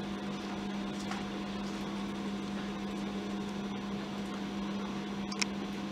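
Steady mechanical hum with an even hiss, like a fan or ventilation running. One short click about five and a half seconds in.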